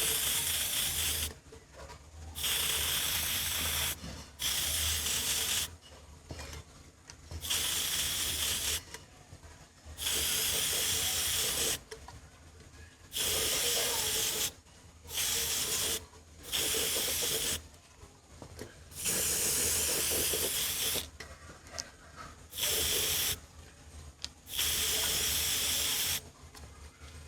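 Spray hissing in about a dozen short bursts, each one to two seconds long, starting and stopping abruptly with brief pauses between.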